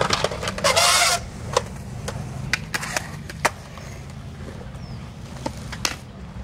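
Skateboard riding on a concrete skatepark bowl: the wheels roll with a steady low rumble, a loud scrape comes about half a second in, and then come several sharp clacks of the board and wheels hitting the concrete.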